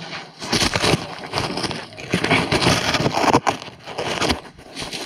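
Irregular crunching and crackling close to the microphone from someone scrambling on foot through undergrowth, with a couple of brief lulls.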